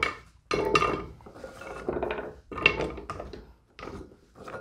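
Raw potato slices being dropped and laid into a baking dish: a run of irregular clatters and clinks against the dish, about half a dozen in a row.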